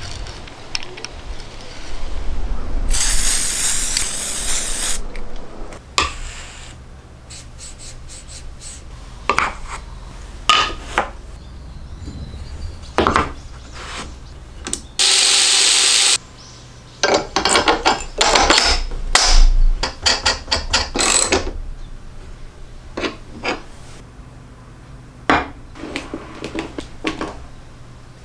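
Metalworking and assembly sounds: a spiral-flute tap cutting threads into a steel angle, with two short loud spells of power-tool noise, one a few seconds in and one about halfway. Between and after them come scattered clicks and knocks of metal parts being handled and fitted against a cordless planer.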